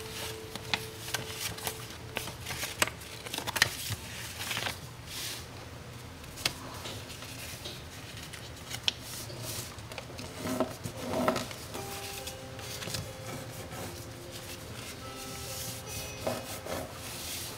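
A sheet of printer paper being folded by hand on a wooden tabletop, its creases rubbed flat: rustling and rubbing with many short, sharp crackles of the paper.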